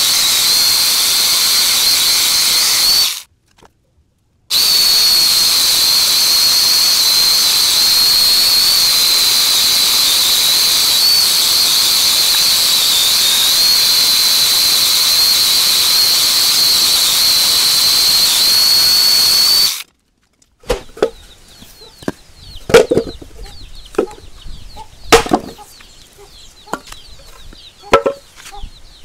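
Electric angle grinder with a chainsaw converter attachment running at full speed, cutting wood, with a steady high whine. The sound breaks off abruptly about three seconds in, returns a second later, and stops abruptly at about twenty seconds. Scattered sharp knocks follow.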